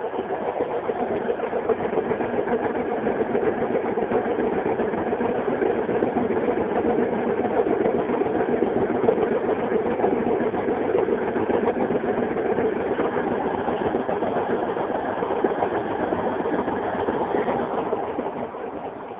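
Washing machine running: a steady machine whir that starts at once, holds even for about eighteen seconds, then dies away near the end.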